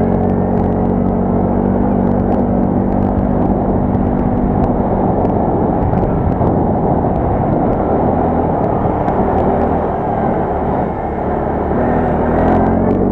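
Quad bike (ATV) engine running on the move, a steady engine note that eases off briefly about ten seconds in and then picks up again.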